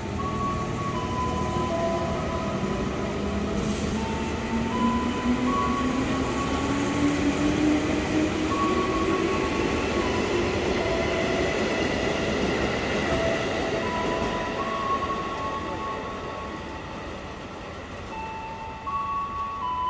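KRL Commuter Line electric multiple unit pulling away from the platform. Its traction-motor whine rises steadily in pitch as it gathers speed, over the rumble of wheels on rail, then fades in the last few seconds as the train leaves.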